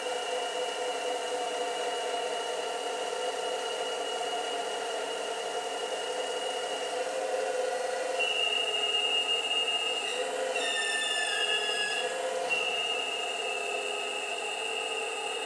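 Hydraulic pump of a 1:8 scale RC Caterpillar 390D excavator running with a steady high whine, which grows louder about eight seconds in as the bucket is worked. A short squeal falling in pitch comes in around ten seconds in.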